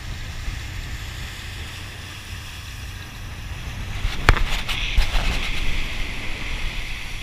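Speedboat running at speed: a steady low engine and wind rumble with water rushing along the hull. A little after four seconds in come two sharp knocks, and the rushing spray grows louder from then on.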